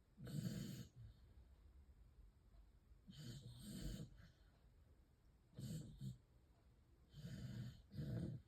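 A sleeping dog snoring: short, quiet snoring breaths every second or two at an uneven pace, some coming in quick pairs.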